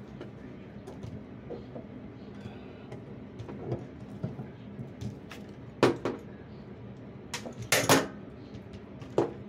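Metal pliers clicking and scraping against a bathtub drain as it is turned down into its putty seal. A few sharp clicks come about six seconds in, then a louder cluster with a short scrape about two seconds later, and one more click near the end.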